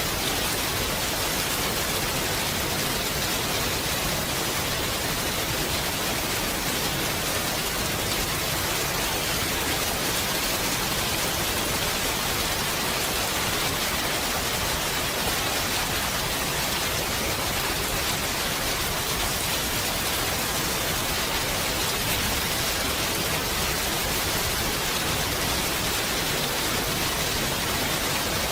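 Steady rainfall, an even hiss of rain with no distinct drops or changes.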